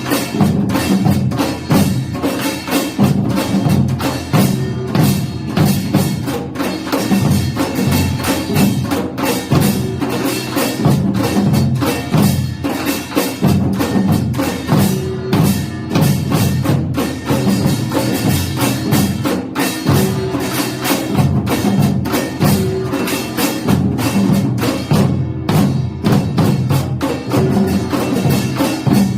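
Samul nori, Korean folk percussion: drums and small gongs struck in a fast, dense, unbroken rhythm.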